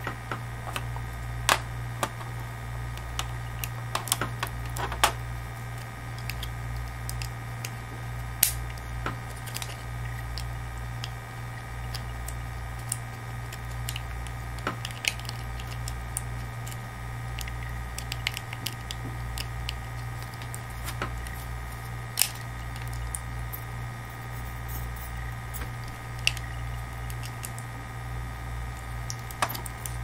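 Clear acrylic case panels clicking and tapping as they are handled and hooked together, a few sharp clicks scattered through, over a steady low hum.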